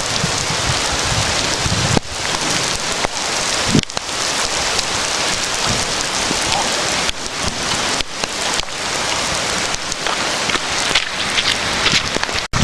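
Heavy rain during a storm, a dense steady hiss that breaks off abruptly and resumes several times.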